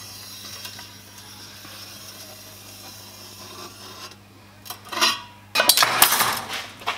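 A steel rule scraping and rubbing along a stainless steel pipe during marking out, then metal tools clattering on the workbench about five seconds in, the clatter being the loudest part.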